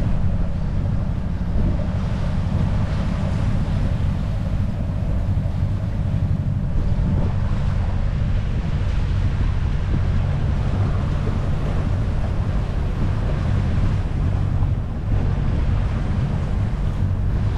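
Wind buffeting the microphone over the steady rush and slap of choppy water along the hull of a sailing yacht under sail.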